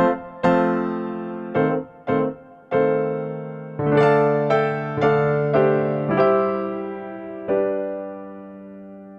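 Background music on a keyboard: a short melody of struck piano-like notes and chords, each fading after it is hit, ending on a long held chord that slowly dies away.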